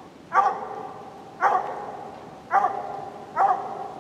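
Bluetick hound barking treed: four loud barks about a second apart, each trailing off in a short drawn-out tone, signalling a squirrel up the tree.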